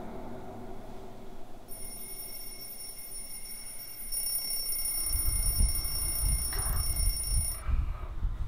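An electronic alarm ringing: a steady, high-pitched tone that starts about two seconds in and cuts off near the end. Low rumbling noise comes in about halfway through.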